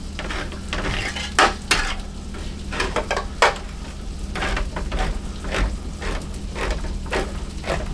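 Burger patties sizzling in a cast iron skillet, with a run of sharp clicks and knocks that settles into about two a second in the second half.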